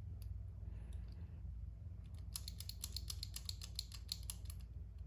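Master Lock combination padlock being worked by hand, a quick run of small plastic-and-metal clicks, about ten a second, from a little over two seconds in to near the end, as the dial is turned against a tensioned shackle to feel for play.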